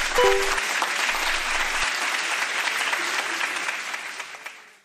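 Audience applauding, steady clapping that fades out near the end.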